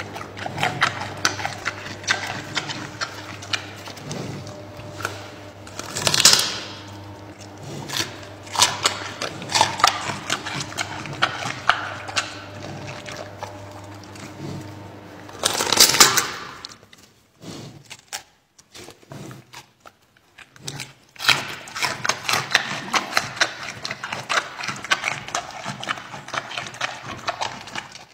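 Giant panda crunching and chewing crisp food close to the microphone: a rapid run of crunches, with two louder bites about six and sixteen seconds in and a quieter pause a few seconds later. A steady low hum runs under the first half.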